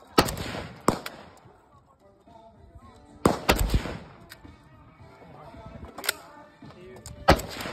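Rifle gunshots at an outdoor range: about six sharp shots, unevenly spaced, two of them in quick succession about three seconds in, each followed by a short echo.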